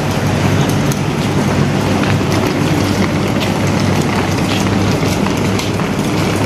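Steady low diesel hum from the standing passenger train, under a continuous rattling hiss of suitcase wheels rolling over the concrete platform, with scattered small clicks.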